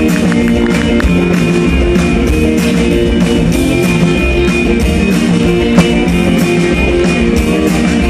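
A rock band playing live: electric guitar over upright bass and drums, with a steady beat.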